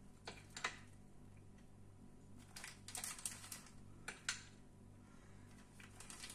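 A spoon scraping and clicking against a small bowl and a plastic piping bag rustling as melted chocolate is spooned into the bag: a few scattered soft clicks and crinkles over a low steady hum.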